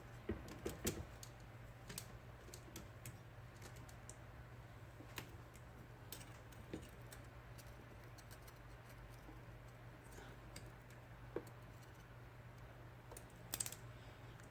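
Faint, scattered small clicks and taps from hands working the mechanism of an IBM Selectric II typewriter while rewinding its return cable, with a few clustered clicks just after the start and near the end, over a steady low hum.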